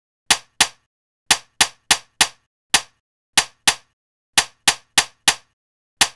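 Staple gun firing, about fourteen sharp metallic snaps in quick runs of two to four, each dying away fast.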